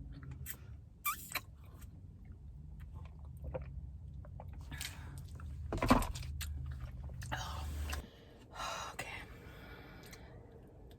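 Close-miked chewing and mouth noises of someone eating a matcha mochi donut, with scattered short clicks and one sharper click about six seconds in. A low steady hum sits underneath and stops about eight seconds in.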